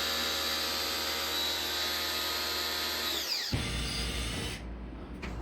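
An electric motor, like a power tool's, runs at a steady pitch, then winds down with falling pitch and stops about three seconds in. A brief hiss follows.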